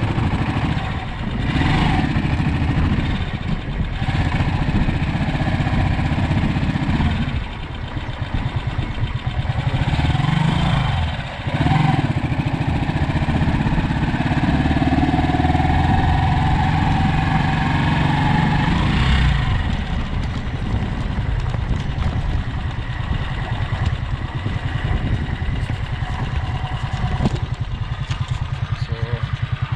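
A vehicle engine running continuously while travelling, its engine speed rising and falling a few times, with the drop and pick-up of pace heaviest in the first half and again about two-thirds of the way in.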